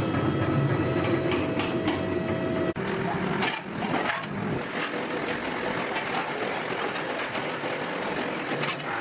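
Steady industrial machinery noise from a factory floor, which changes abruptly about three seconds in to a different noisy din with a few sharp metallic clinks.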